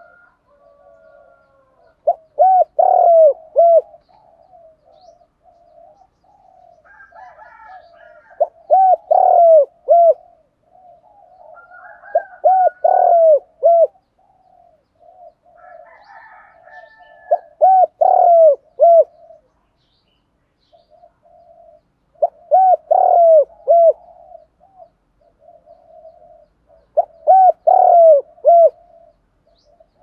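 Spotted dove cooing: a loud phrase of several coo notes, repeated about every five seconds, six times in all, with softer cooing in between.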